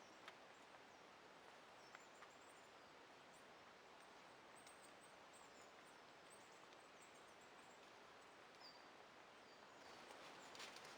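Quiet forest ambience: a faint steady hush with a few small, high, short bird chirps scattered through, and light rustling and clicks near the end.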